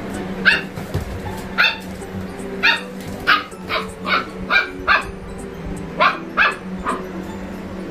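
A dog barking repeatedly, about ten short barks, some in quick pairs, over a steady low hum.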